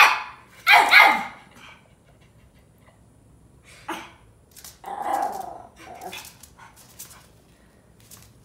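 Chihuahua barking at a Hexbug toy: two loud, sharp barks at the start and about a second in, then a few quieter, spaced-out barks through the middle.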